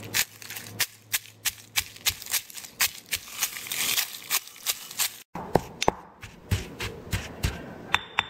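Stone pestle pounding dried red chilies in a heavy stone mortar: a run of sharp crunching strikes, about two or three a second. After a break about five seconds in, sparser knocks.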